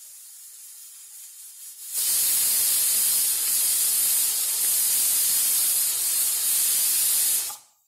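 Aluminium pressure cooker whistling: a faint steam hiss at first, then about two seconds in the weight lifts and steam jets out in a loud steady hiss for about five seconds before cutting off. Each whistle signals that the cooker has reached pressure, and whistles are counted to time the cooking.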